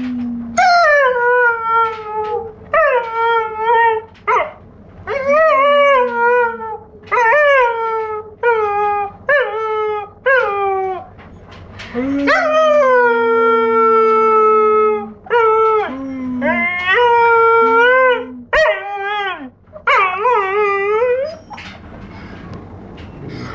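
Four-month-old Giant Schnauzer puppy howling: a run of high, short howls, each sliding down in pitch, about one a second, with one long drawn-out howl about halfway through.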